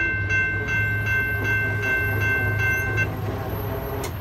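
Railroad grade-crossing warning bell ringing in an even rhythm of about two to three strokes a second, then stopping about three seconds in as the gates go up. A low rumble runs underneath, and there is a sharp click near the end.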